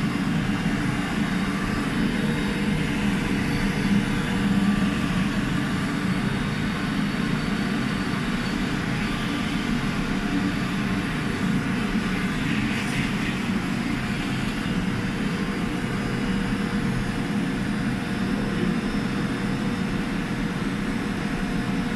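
Hot-air blower running steadily, its fan giving a constant whoosh with a faint hum, as it heats a chiller compressor to evaporate moisture out of it.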